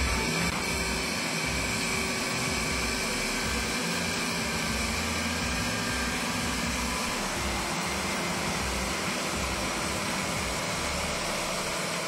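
The engine of a tracked swamp carrier runs steadily as the machine crawls up a grassy slope.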